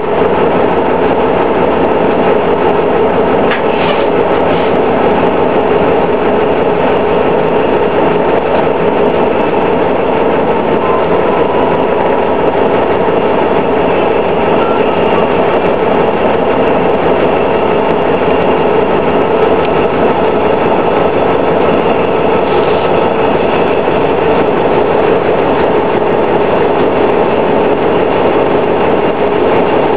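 Detroit Diesel Series 50 four-cylinder engine and Allison B400R automatic transmission of a 2000 New Flyer D60 articulated bus, running steadily with a whine.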